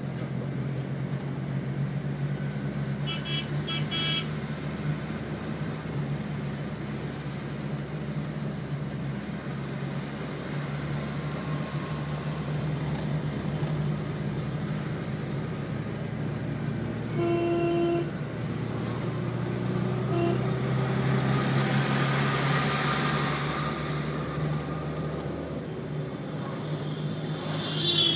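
Steady engine and road noise heard from inside a moving car's cabin. Short horn toots sound around 3–4 seconds in and again about 17 seconds in. A rush of noise swells and fades a little after 20 seconds.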